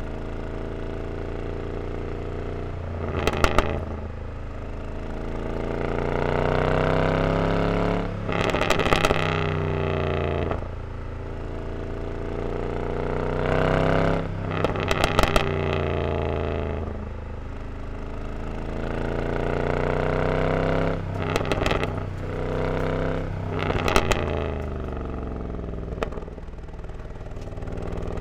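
Mercedes-Benz E63 AMG's 6.3-litre M156 V8 with resonator-deleted exhaust, pulling up through the revs again and again, with a short burst of crackling at each change, about five times.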